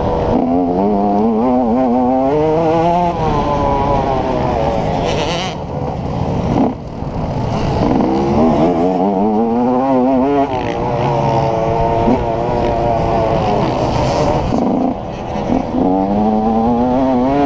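Yamaha YZ125 single-cylinder two-stroke motocross engine revving hard on track, its pitch climbing in repeated sweeps through the gears and dropping briefly at each shift or roll-off, about four or five times, heard from a helmet-mounted camera.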